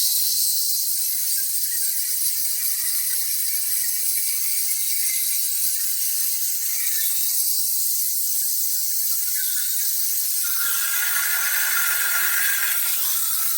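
CNC plasma torch cutting quarter-inch hot-rolled steel plate: a steady high-pitched hiss, with a lower rushing sound joining in about eleven seconds in.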